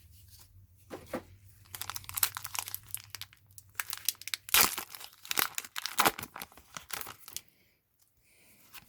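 A foil Pokémon booster pack wrapper being torn open and crinkled by hand, in a run of irregular crackles that stops near the end.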